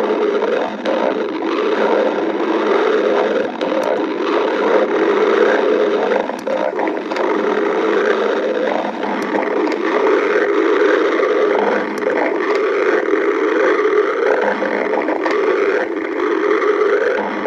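Hungry stomach growling: a continuous, wavering gurgling rumble that goes on without a break.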